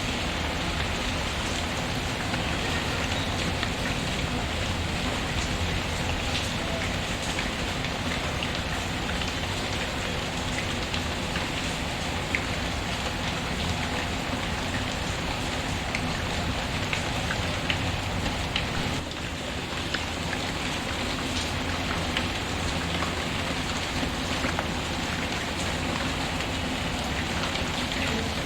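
Steady rain falling, with scattered sharp pops and crackles from a wood fire in a fireplace.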